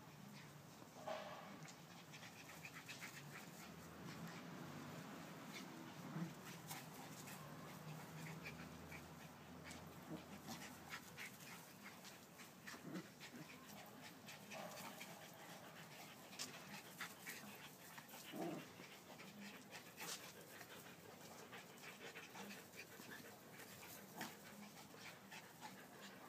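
Two dogs at play: faint panting with a few brief vocal sounds, amid scattered light taps and rustles.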